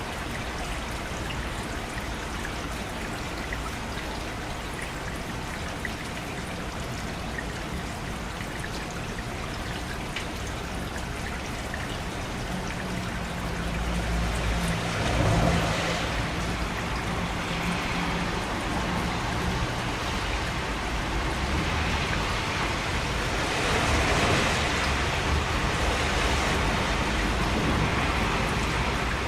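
Steady rain falling, an even hiss of drops that swells louder about halfway through and again near the end, with a low rumble underneath.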